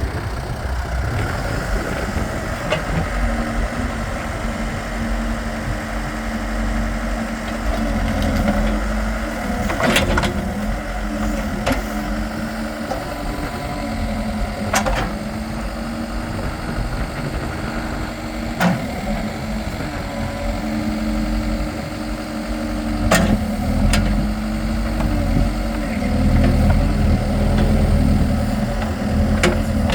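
The diesel engine of a 2005 Case 580 Super M Series 2 loader backhoe runs steadily, its pitch shifting a few times, with several sharp clanks along the way.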